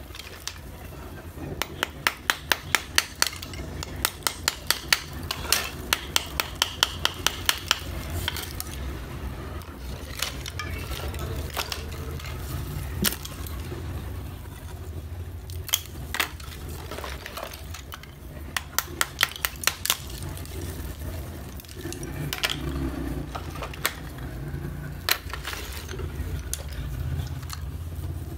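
Thin plates of roasted multani mitti (fuller's earth clay) clinking and scraping against each other as a gloved hand rummages through the pile. There are quick runs of sharp clicks in the first several seconds and scattered clicks later, over a low steady hum.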